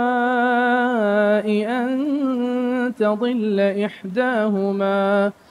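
A man chanting Quranic recitation in melodic tajweed with no instruments. He holds a long drawn-out vowel, then moves through wavering ornamented turns, and breaks off briefly near the end to take a breath.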